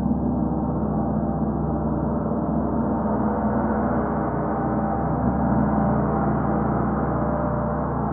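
Gongs ringing in a sustained wash of many overlapping tones, with a slow wavering pulse in the deep tones and no distinct strikes.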